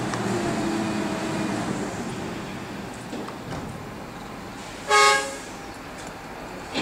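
A vehicle horn sounds one short, loud toot about five seconds in, over the low rumble of an engine running that is strongest in the first two seconds and then eases off.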